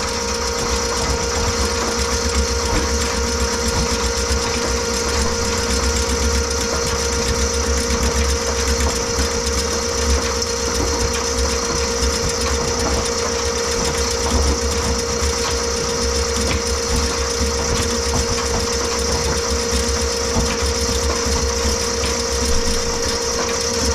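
Electric drain-cleaning machine running steadily with an even motor whine, its cable spinning in a kitchen sink drain line to cut through a grease blockage.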